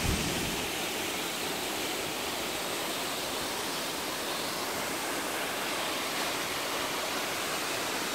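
Steady rush of falling water from Tew's Falls, a tall waterfall, heard as an even, unbroken hiss. There is a brief low bump right at the start.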